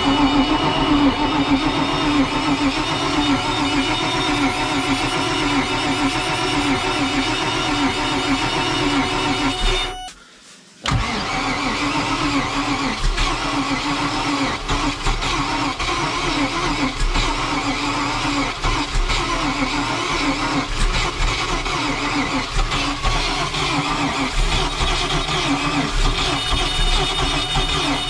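Boat's inboard engine being cranked over by its starter motor on booster batteries, turning over with an even pulsing churn but not catching: it is getting no fuel, and the battery is running down. The cranking stops for about a second roughly a third of the way in, then starts again.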